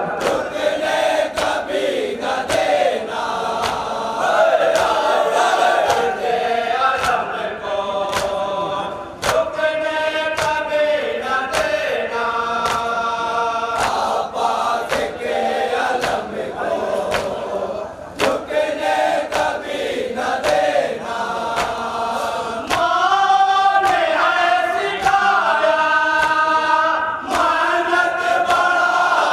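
A group of men chanting a nauha, a Shia mourning lament, together in a slow, drawn-out melody over a steady beat of hands striking chests (matam).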